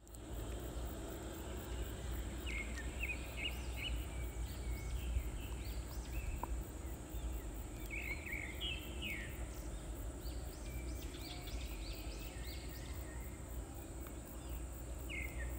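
Wild birds chirping in short, scattered bursts over a steady high insect drone, with a constant low rumble underneath.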